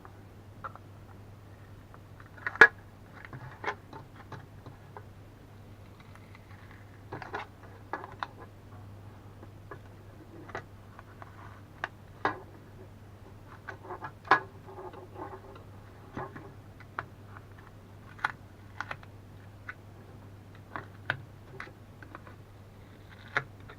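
Irregular clicks and taps of small hard objects being handled and set down on a workbench while a power bank is taken apart, over a steady low mains hum.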